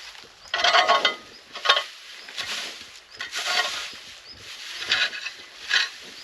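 Dry straw bedding rustling and crackling as it is handled and spread, in about half a dozen irregular bursts.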